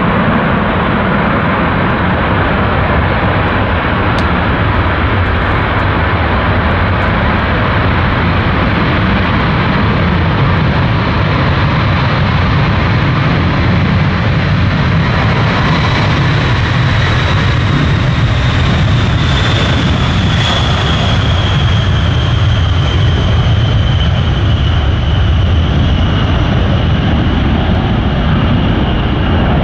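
Boeing B-52H Stratofortress's eight Pratt & Whitney TF33 turbofan engines at takeoff power: a loud, steady roar as the bomber rolls down the runway and lifts off. In the second half a high whine slowly falls in pitch as the aircraft passes.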